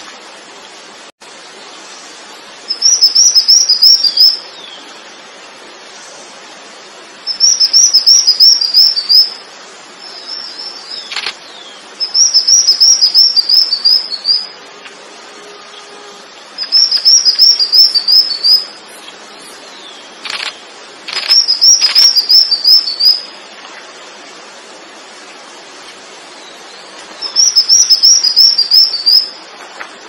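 A songbird singing one phrase over and over: a fast run of about eight high, clear notes, each run lasting one to two seconds and repeated every four to five seconds over a faint steady hiss.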